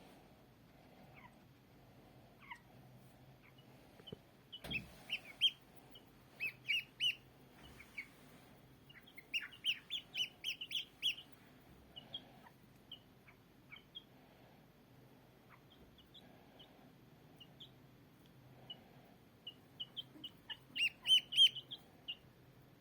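A small bird chirping: groups of short, quick, high chirps with pauses between them, the loudest group near the end.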